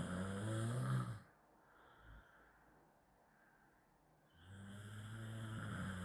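A person snoring loudly. One snore ends about a second in, there is a quiet gap with a faint breath, and another long snore starts about four seconds in.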